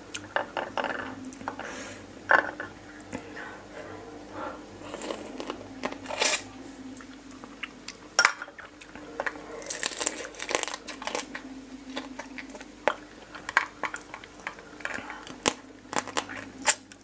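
Raw fish-sauce-pickled blue swimming crab being broken apart by hand and eaten: scattered sharp cracks and clicks of shell, with wet sucking and chewing of the crab meat, bunched more densely about five and ten seconds in.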